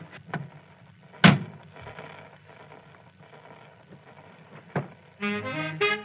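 Sharp clicks and knocks of a record being changed on a phonograph over a low hum, with the loudest knock about a second in; near the end a fast big-band swing record with saxophones and brass starts playing.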